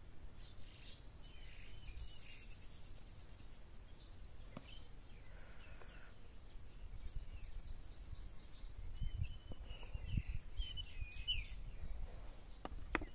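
Small birds chirping in short whistled calls over a low rumble, with a couple of sharp clicks near the end.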